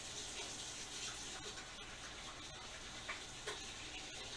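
Kitchen tap running steadily, with hands being washed under the stream.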